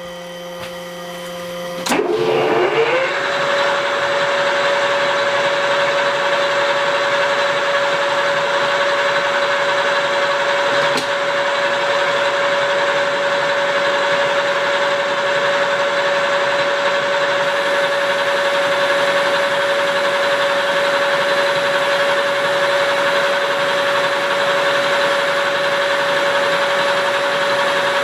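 Engine lathe starting up about two seconds in: its drive whine rises briefly, then settles into a steady machine hum.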